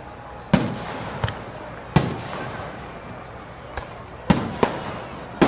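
Fireworks going off: about half a dozen sharp bangs at uneven intervals, each trailing off in a brief echo, over a steady background hiss.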